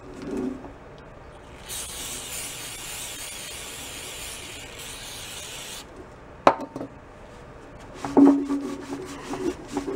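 An aerosol spray can hisses steadily for about four seconds and cuts off sharply, followed by a single click. Near the end a rag scrubs and rubs over the painted sheet metal of a motorcycle panel.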